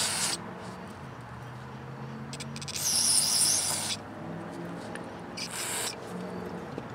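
Aerosol carburetor cleaner hissing in several short bursts, the longest about a second long near the middle, as it is sprayed through the carburetor's jets and passages to clear varnish and debris. A faint low hum runs underneath.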